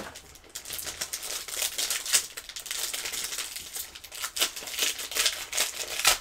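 Foil wrapper of a trading card pack crinkling continuously as hands twist and work it open, with a sharp crackle at the start and another near the end.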